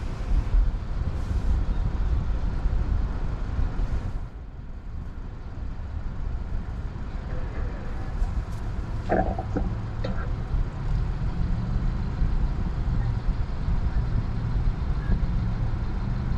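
Steady low rumble of a slow-moving electric car, mostly tyre and road noise, with a couple of short sounds about nine and ten seconds in.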